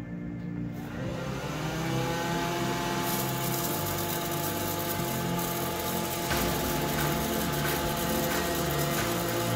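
Hot air popcorn popper's fan motor spinning up, its whine rising in pitch over a second or so, then running steadily with a rush of blown air that grows louder about three seconds in.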